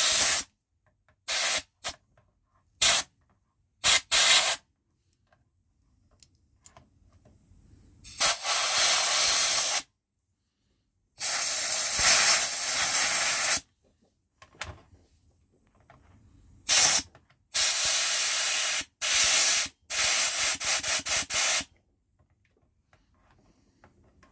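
Compressed air from a small compressor's blow nozzle hissing in bursts into a PS4 controller's buttons and sticks, blowing out dirt. Several short blasts, then two long ones of about two seconds, then a quick run of short blasts near the end.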